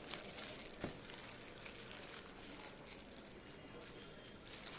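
Plastic courier mailer bag crinkling and rustling as a hand opens it and reaches inside, with one sharp snap about a second in.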